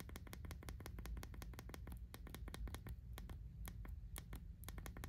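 iPhone 15 Pro action button pressed again and again through the Mous Clarity case's raised button cover: a rapid run of sharp clicks, many a second, with a steady low hum underneath.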